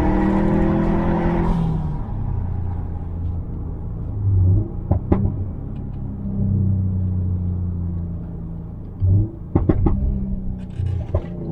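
Tuned Subaru WRX STi's turbocharged EJ257 2.5-litre boxer engine with a deleted muffler, pulling with rising revs and then lifting off. The revs fall and the exhaust gives sharp pops and bangs on the overrun, about five seconds in and again in a cluster near the end, before the revs rise once more.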